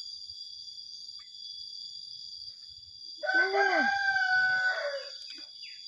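A rooster crowing once, starting about three seconds in: a single call of nearly two seconds, held steady and dropping in pitch at the end.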